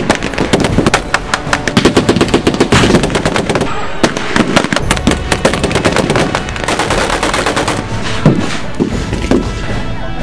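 Sustained gunfire from WWII-era rifles and automatic weapons firing blanks, shots coming many a second and overlapping into a continuous crackle.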